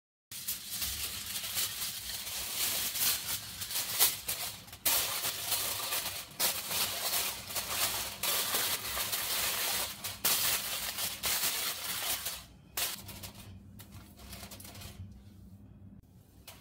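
Aluminium foil crinkling and crackling as it is spread and pressed down over the rim of a cooking pot, dying down to quieter, scattered rustles in the last few seconds.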